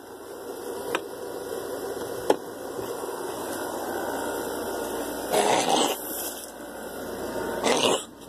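Steady hiss and hum of room noise that swells slightly over the first few seconds, with two sharp clicks and, later, two louder rustling bursts as the phone is handled and moved.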